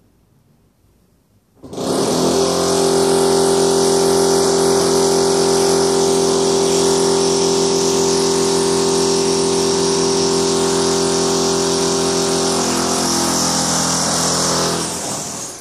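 Electric drill running steadily in the house, starting about two seconds in and winding down near the end.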